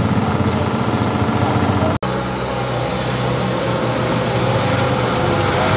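Porsche 911 GT3 Cup race car engines idling with a steady, even note, broken by a short cut about two seconds in. Near the end the pitch creeps slowly upward.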